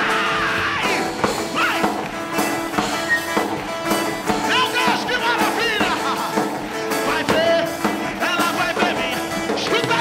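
Live church worship music: held keyboard chords under voices singing and calling out in fervent worship.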